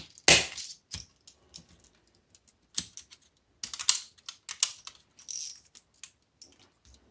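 Copper windings of a washing machine motor being cut through by hand with a hand cutting tool: a series of irregular sharp clicks and snaps, the loudest about a third of a second in.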